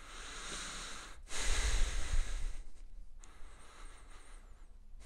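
A man breathing audibly through his nose while holding a yoga stretch: a soft breath, then a stronger one starting about a second in that lasts about a second, then quieter breathing.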